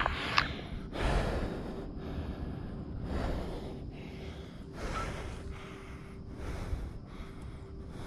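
A man's breathing close to the microphone, a breath drawn and let out every second or so, from the effort of climbing a radio tower.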